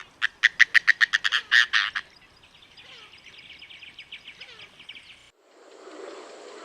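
Oriental darter calling: about ten loud, harsh notes in quick succession over the first two seconds, then a quieter, faster chattering series. The sound cuts off suddenly about five seconds in and gives way to a different background hiss.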